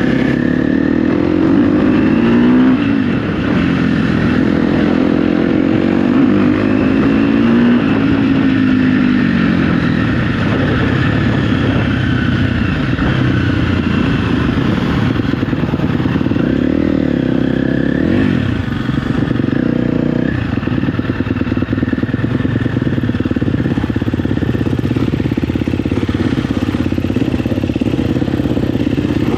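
KTM 250 SX-F dirt bike's single-cylinder four-stroke engine being ridden, its pitch rising and falling as the throttle opens and closes and the gears change.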